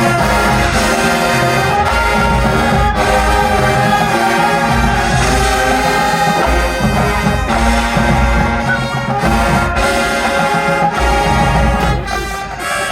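High school marching band playing, brass section holding loud chords over drum hits.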